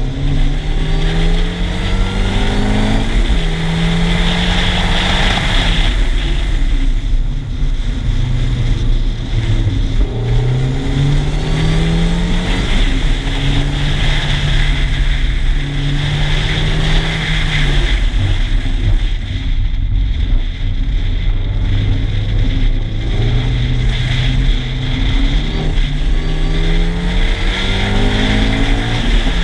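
MINI Cooper S R52 convertible's supercharged four-cylinder engine driven hard. Its pitch climbs several times and drops back, over a steady rushing noise.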